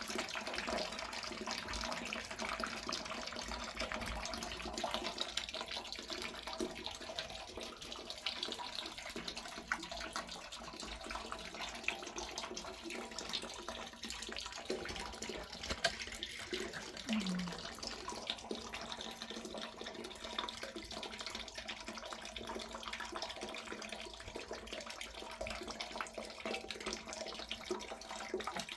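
Water running and splashing steadily, like a tap or pipe flowing into a basin.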